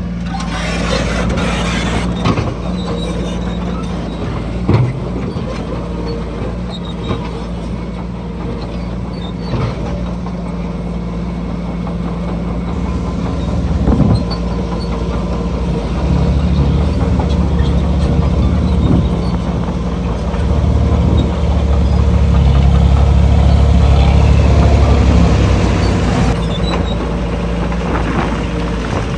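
Diesel engines of heavy earthmoving machinery running steadily, with a deeper, louder engine rumble swelling for several seconds past the middle, as under load, and a few scattered knocks.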